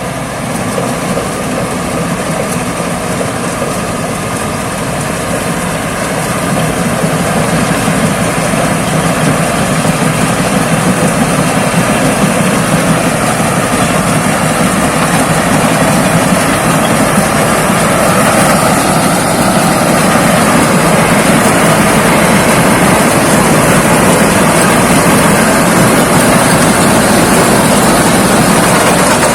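Thai Seng 'Chao Phayu' rice combine harvester running steadily as it harvests rice, its engine and threshing machinery making a continuous drone. The sound grows louder over the first ten seconds or so, then holds steady.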